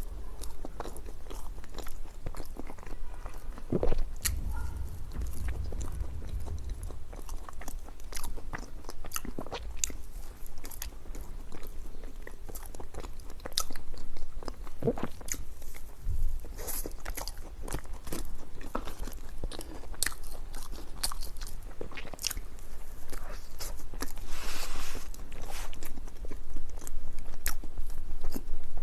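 A person biting and chewing crunchy food, with many irregular sharp crunches.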